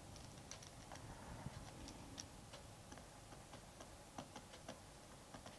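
Near silence with faint, irregularly spaced ticks of a stylus tapping and dragging on a tablet screen as handwriting is written.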